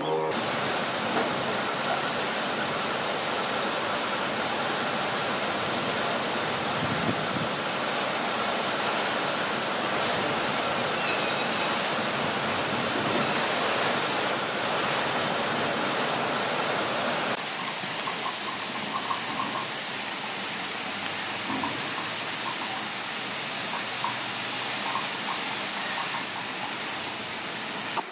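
Heavy rain pouring down in a steady, dense hiss. About two-thirds of the way through, the sound changes to a lighter hiss dotted with many separate drips and pattering drops.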